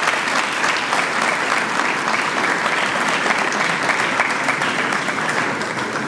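An audience applauding steadily, with many hands clapping, tapering off just after it ends.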